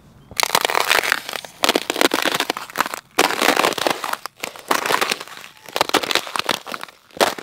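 Rubber boots stepping on the thin ice of a frozen puddle over gravel, the ice cracking and crunching underfoot in a run of crackly spells with short pauses between them.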